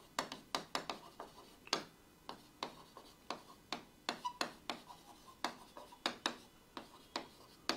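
Pen strokes on an interactive whiteboard: a quick, irregular run of light taps and scrapes, about three a second, as words are written out.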